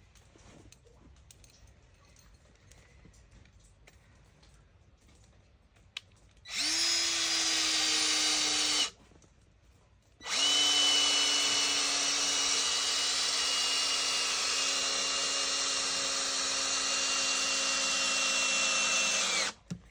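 Electric drill running into the wood of a carved bear's new base in two runs, about two seconds, then after a short pause about nine seconds, its pitch sagging slightly as it bogs under load near the end.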